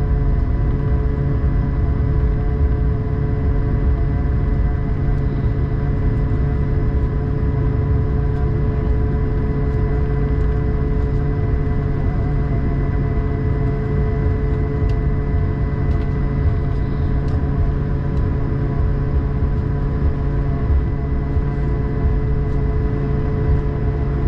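Cabin noise aboard an Airbus A220-300 taxiing after landing: its Pratt & Whitney PW1500G geared turbofans running at idle, a steady engine whine of several tones over a low rumble.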